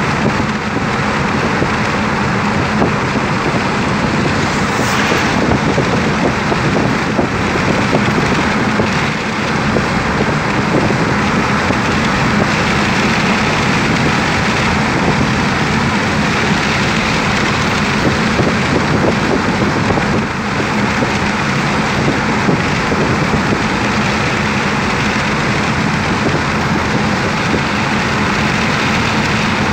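Steady road noise of a car driving at highway speed, heard from inside the cabin: tyres on asphalt, engine and wind, with a constant low hum.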